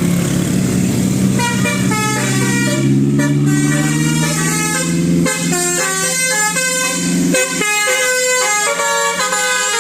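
A bus's telolet multi-tone horn playing a quick melody of short stepped notes over a low, steady drone. The drone climbs gently in pitch and drops away about five and a half seconds in, then fully by seven and a half.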